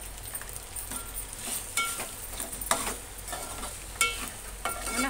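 Steel spoon stirring pasta in a metal cooking pot, scraping and giving several sharp clinks against the pot, over the steady sizzle of the sauce in the hot pan.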